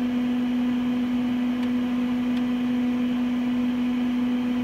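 A steady, even hum with a constant hiss beneath it, and two faint ticks about one and a half and two and a half seconds in.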